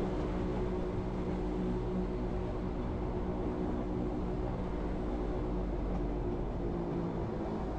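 Wengernalp railway electric rack train running steadily uphill. Its even running noise carries a few steady low hum tones.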